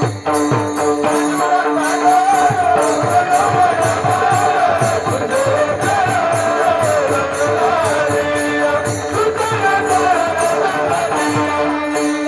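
Instrumental kirtan accompaniment: a wavering melody over a steady drone, with regular drum beats and continual jingling cymbals.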